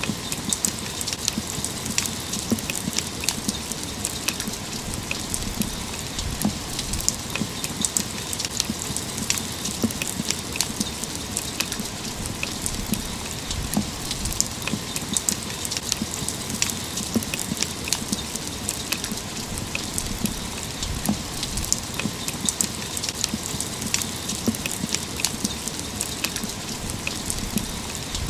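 Steady rain: an even hiss of falling rain with frequent individual drops landing close by, heard as sharp irregular ticks.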